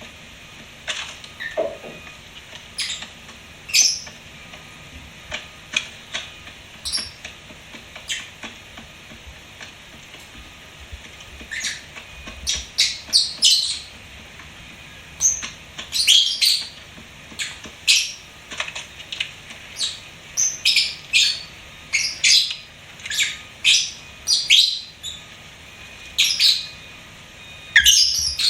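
Lovebirds chirping and squawking in short, sharp, high-pitched calls, scattered at first and then coming in quick runs about halfway through.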